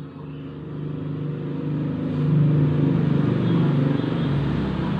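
A motor vehicle's engine rumbling as it goes by, swelling about two seconds in and easing off near the end.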